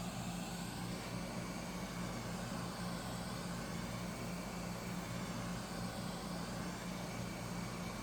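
Hot air rework gun blowing steadily at about 465 °C, heating the screen's adhesive: a steady low fan hum under an even hiss of air.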